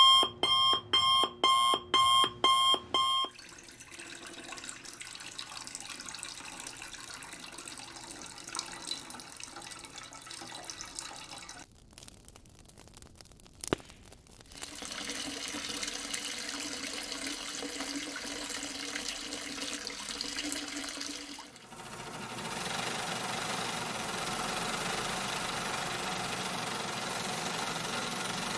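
Electronic beeping in quick, even pulses, about two a second, for the first three seconds. After that comes a steady hiss, broken by a short lull with a single click about halfway through, then a louder hiss with a low hum, and a broader hiss near the end.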